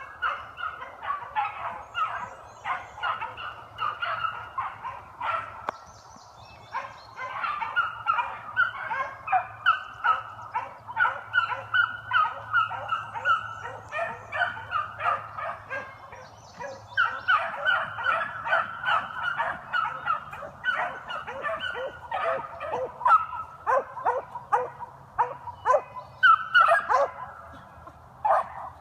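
A pack of beagles baying together in a rapid, overlapping run of short barks, the sound of hounds in full cry on a rabbit's scent trail. It slackens briefly twice and builds again near the end.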